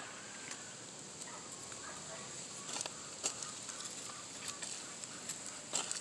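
Truper garden hoe scraping and chopping into dry soil, pulling earth up around the base of young corn plants. There are a few sharp strikes, about three seconds in and twice just before the end.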